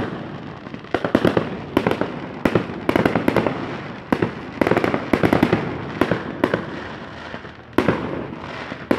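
Aerial firework shells bursting, repeated sharp bangs coming in quick clusters about every second, with an echoing wash between them.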